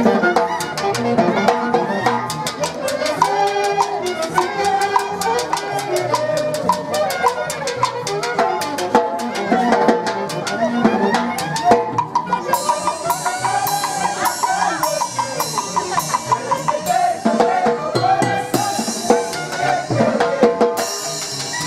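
Live Andean dance band of saxophones and trumpets with a harp playing a lively dance tune over a steady drum beat. From about halfway, a bright, high, shimmering layer comes and goes.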